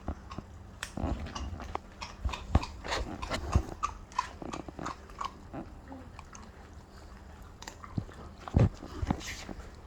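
Rhodesian Ridgeback puppies chewing raw chicken legs: irregular wet crunches and snaps of bone and gristle, with a few louder bites.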